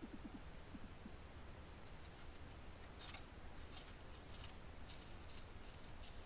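Pine marten's paws rustling and crunching through dry leaf litter as it walks, a run of quick soft patters starting about two seconds in.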